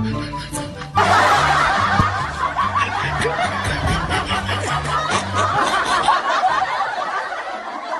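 Background music, then about a second in a crowd's laughter starts abruptly over it and goes on, thinning toward the end. The music's low bass notes stop about six seconds in.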